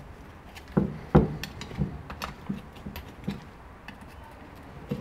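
Flat screwdriver prying open the tabs around the cover of a Ford Mondeo Mk3 2.2 TDCi EGR valve housing: a run of irregular clicks and knocks as the blade catches and levers the tabs, the loudest about a second in.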